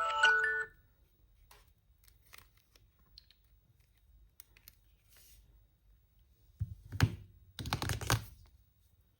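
A phone's bell-like alarm melody plays its last notes and stops in the first second. Faint ticks follow, and a little past the middle comes a short cluster of sharp clicks and knocks, like a phone being tapped and handled.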